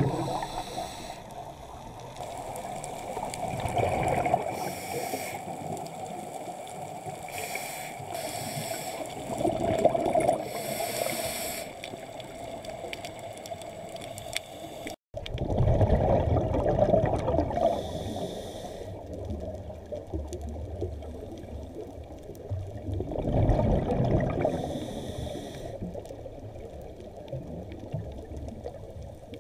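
A scuba diver breathing through a regulator underwater: the hiss of each inhalation alternates every few seconds with the bubbling rush of exhaled air. The sound cuts out for an instant about halfway through.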